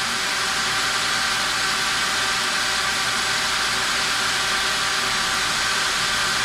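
Cordless drill running steadily, its quarter-inch bit cutting a hole into the end of a piece of aluminum stock, with an even whine.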